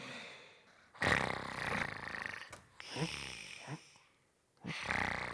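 Loud snoring in sleep: a long rasping breath, then a shorter wavering one, then another rasping breath, each separated by a brief silence.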